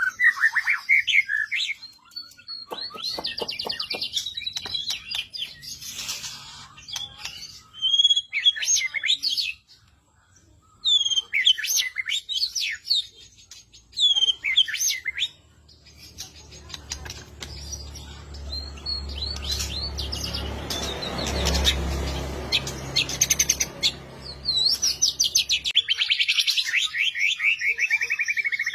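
Songbird singing a varied masteran (tutor) song of fast trills, quick rising chirps and sharp whistled notes, in phrases broken by short pauses. A low hum runs underneath through the middle stretch.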